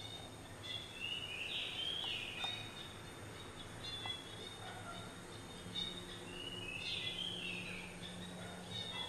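Birds chirping, with two busier flurries of chirps, one about two seconds in and another about seven seconds in, over a low steady hum.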